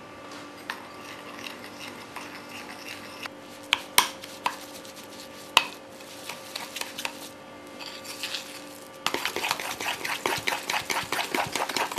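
Fork beating egg yolks and sugar in a ceramic bowl: scattered clinks of metal against the bowl, two of them sharp, then from about nine seconds in a fast, rhythmic clatter as the beating speeds up.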